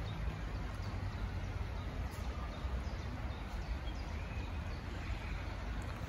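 Park ambience: a steady low rumble with a few faint bird chirps now and then.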